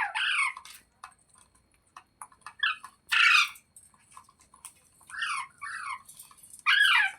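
Green parrot giving a series of short chirping squawks, about six calls spread over a few seconds, with one harsher screech about three seconds in.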